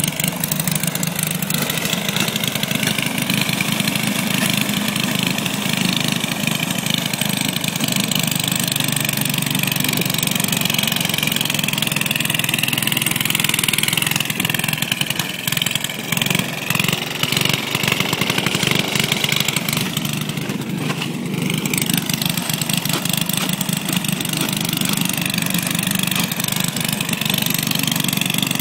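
An engine running steadily for the whole stretch, its pitch wavering up and down a little.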